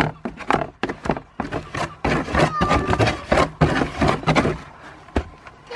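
Cardboard box crackling, scraping and knocking as a goat kid pushes its head around inside it and shoves against the flaps. The rustles come in quick, irregular bursts.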